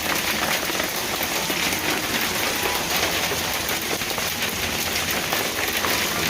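Hail falling steadily on the newly built bicycle camper: a dense, even run of small hard hits from hailstones.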